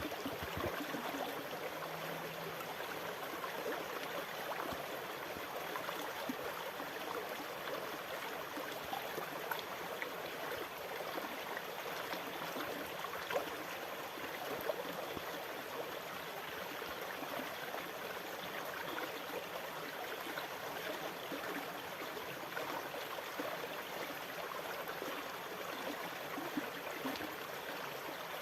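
Water running steadily, a constant fine splashing rush that holds an even level, with no rise and fall of breaking waves.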